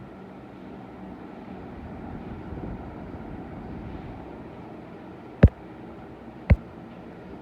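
Venti Delta Plus ceiling fan running, with a steady whoosh of moving air and a faint hum. Two sharp clicks, about a second apart, come near the end.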